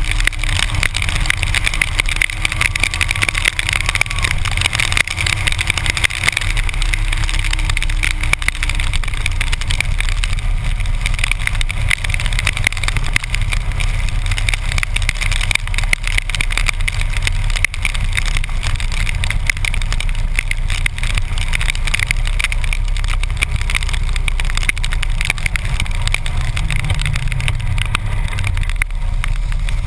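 Harley-Davidson motorcycle's V-twin engine running steadily at cruising speed, with a constant hiss of wind and wet-road spray over it.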